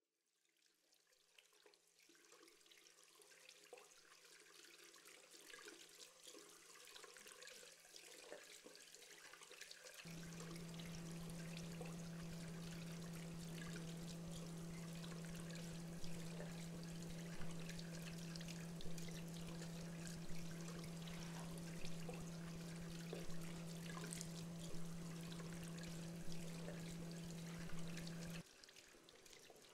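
A faint hiss of running water fades in. About ten seconds in, a low steady hum joins it, with a soft pulse about every second and a half, and the hum cuts off suddenly near the end.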